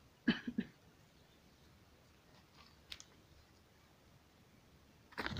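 A few short crackles and clicks against a quiet background. Three come quickly together about a third of a second in, a single click falls near three seconds, and a louder cluster arrives at the very end.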